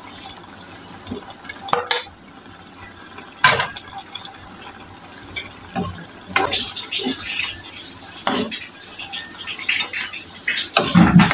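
A metal spoon clinking and scraping against a frying pan as fried tofu is stirred into a simmering pork and potato stew. From about six seconds in, a steady sizzling hiss comes from the pan under the clinks.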